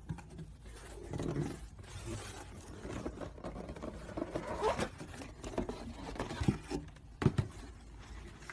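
Hands handling a cardboard presentation box and the paper inside: irregular scraping and rustling, with two sharp knocks about a second apart near the end.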